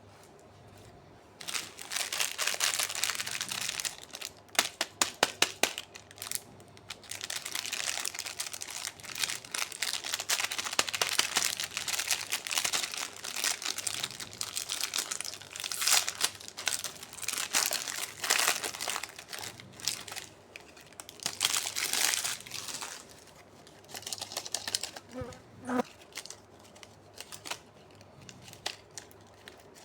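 Plastic candy wrappers crinkling and tearing open in irregular rustling bursts, with a quick run of sharp clicks about five seconds in; the rustling thins out near the end.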